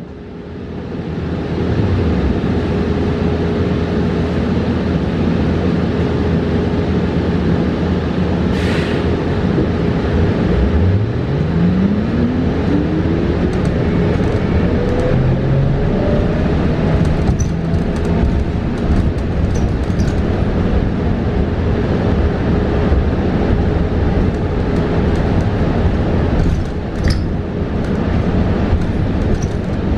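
Cabin noise of a New Flyer XE40 battery-electric city bus on the move: steady road and tyre rumble with a constant hum. About ten seconds in, the electric drive motor's whine rises steadily in pitch as the bus accelerates. Occasional light rattles and clicks.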